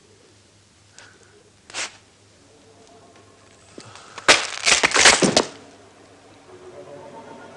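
Two faint knocks, then about halfway through a quick run of loud cracking, crashing impacts lasting about a second.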